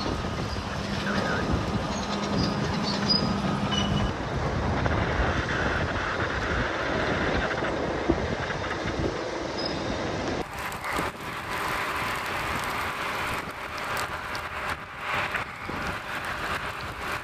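Wildfire burning with a steady, rushing, rumbling noise. A bulldozer's engine hums under it for the first four seconds, and the fire noise is full of crackling in the last several seconds. The sound changes abruptly about four and ten seconds in.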